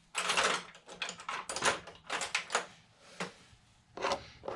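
Small metal parts of an Abu Garcia 6500 C3 baitcasting reel handled and set down on a plastic tray: a run of short, irregular scrapes and clicks as a drag washer stuck in the reel's side plate is worked at.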